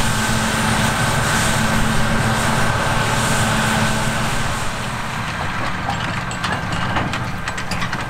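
Claas Lexion 770 TT combine harvester running under load, a steady mechanical hum with a thin held whine. In the second half the running is slightly quieter, with a run of sharp clicks and rattles.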